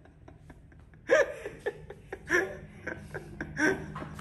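A person laughing in short repeated bursts, starting about a second in, over a faint low steady hum.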